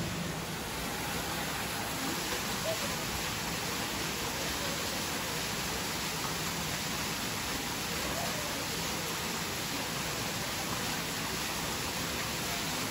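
Steady, even rush of falling water, like a waterfall in an indoor rainforest exhibit.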